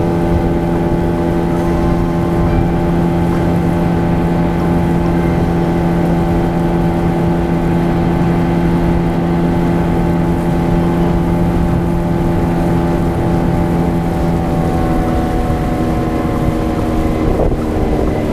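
Motorboat engine running at a steady speed, with wind on the microphone; the engine note drops near the end as it slows.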